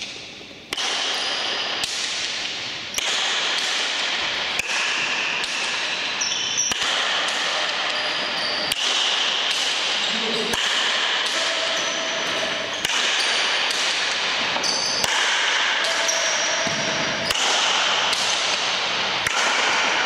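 Pelote basque paleta rally: sharp knocks of wooden paletas striking the ball and the ball smacking the front wall and floor, about one hit every second, ringing on in the reverberation of the large indoor court.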